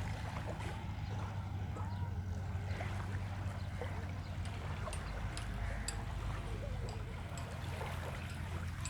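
Seaside ambience: a steady low rumble of sea and wind, with faint distant voices of people on the beach.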